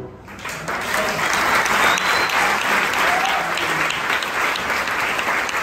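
Audience applauding. The clapping swells within the first half second, then holds steady as a dense patter.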